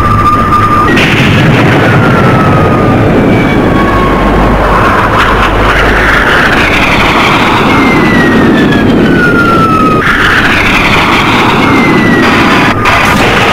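Sci-fi jet-fighter battle sound effects: a heavy, steady engine rumble with repeated falling whines, each sliding down in pitch over a second or two, and a few rushing blasts.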